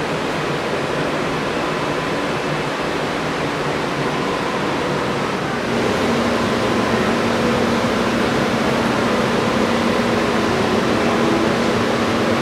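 Steady rushing background noise of ventilation. It gets slightly louder about six seconds in, where a low steady hum joins it.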